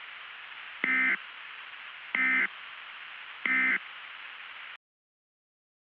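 Emergency Alert System end-of-message signal: three identical short digital data bursts about a second and a quarter apart, over a steady static hiss. The hiss cuts off abruptly about a second before the end.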